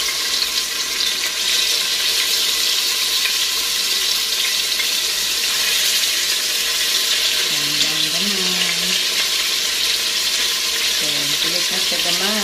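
Marinated chicken drumsticks sizzling steadily in hot oil in an Instant Pot's stainless steel inner pot on the sauté setting, browning, with metal tongs scraping and turning the pieces.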